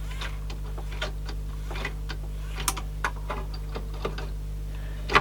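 Light, irregular clicks and taps of plastic and metal parts being handled inside an open CD player's disc mechanism, with a sharper click near the end, over a steady low hum.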